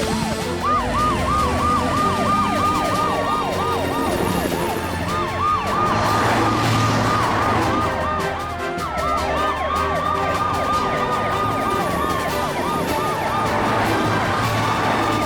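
Several emergency-vehicle sirens wailing over one another, some in quick up-and-down sweeps and others in slower, longer wails, with music underneath.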